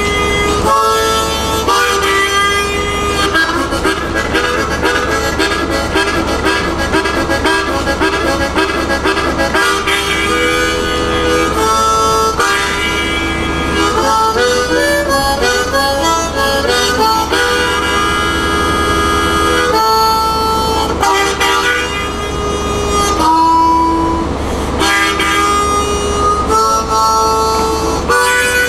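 Harmonica played hands-cupped in a blues train tune: stretches of fast repeated chugging chords alternate with long held notes.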